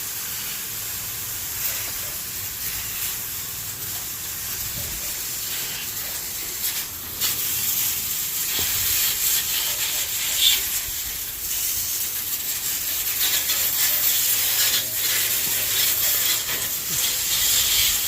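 Garden hose spraying water onto aviary surfaces, a steady hiss that gets louder about seven seconds in.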